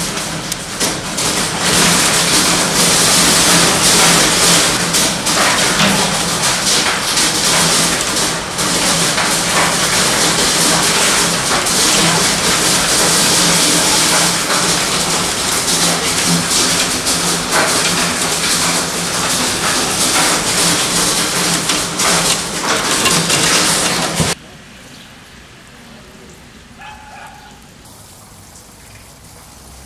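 Hailstorm: heavy rain and hail pelting down in a loud, dense hiss full of sharp ticks, with a low steady hum underneath. It cuts off suddenly about 24 seconds in, leaving a much quieter background.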